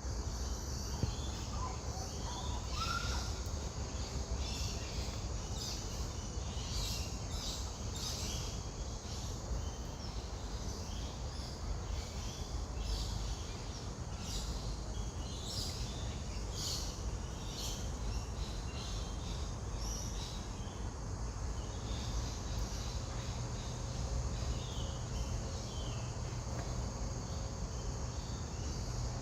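Outdoor ambience of short, irregular high chirps from small birds and insects over a steady low rumble, with one faint rising call about three seconds in.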